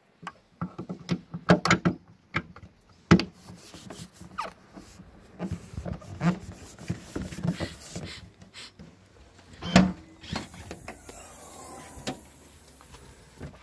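Hands working the plastic housing and clips of a car's third brake light: a run of irregular clicks and knocks with scraping between them. The loudest knocks come about a second and a half in, about three seconds in, and near ten seconds in.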